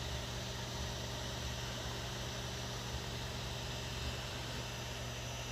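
Creality Ender 3 S1 3D printer running near the end of a print, its fans and motors making a steady whirring hum.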